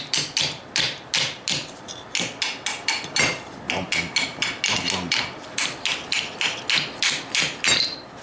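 Hand hammer striking a one-inch hot-cut chisel as it is driven through red-hot steel plate on the anvil, about three or four even blows a second, each with a metallic ring: slits being cut through the plate.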